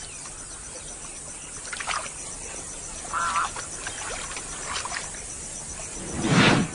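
Wild outdoor background with a few short, scattered bird calls, then a single loud, low, rough animal call of under a second near the end.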